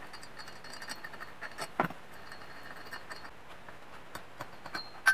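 Scattered light clicks and taps of hands and tools on the parts of a small two-stroke engine, with a louder knock a little under two seconds in and a sharp click at the very end.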